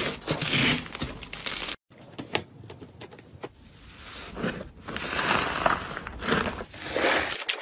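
Hands kneading and squeezing slime: crackling, crinkly squishes in repeated swells. About two seconds in it cuts to a second slime, a foamy one squeezed through the fingers, with quieter crackling and popping that swells again with each squeeze.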